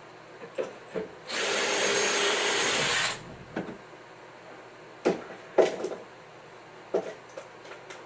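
A power drill briefly boring into wood, a steady run of about two seconds that starts and stops abruptly. Several sharp knocks, like wood pieces being set down and handled, come just before it and three or four times after it.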